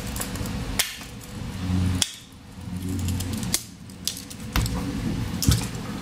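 Sharp metallic clicks and scrapes of a folding pocket multitool being handled and its pliers gripping the metal shell of a USB-C cable connector, about five distinct snaps spaced roughly a second apart.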